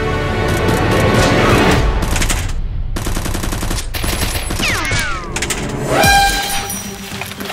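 Movie-style automatic gunfire sound effects in rapid bursts, with a short break partway through, over background music.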